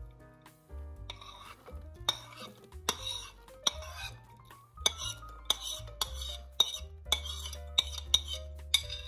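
A spoon scraping and clinking in a bowl in about a dozen short strokes, as in stirring a mixture, over soft piano music.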